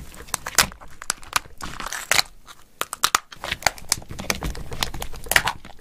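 Shell of a raw soy-sauce-marinated swimming crab (watari-gani) being pried apart by hand: the belly flap and top shell pulled away in a close, quick run of cracks, crackles and wet tearing, with a few sharper snaps.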